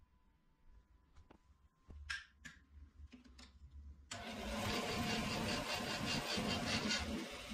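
Makita LB1200F bandsaw switched on about four seconds in: the motor and blade start suddenly and run steadily with a hum and a fast, even pulsing, with no wood being cut. A few faint clicks come before it starts.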